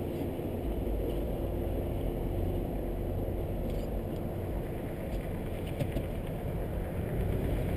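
A car idling at a standstill: a steady low engine rumble with a faint constant hum.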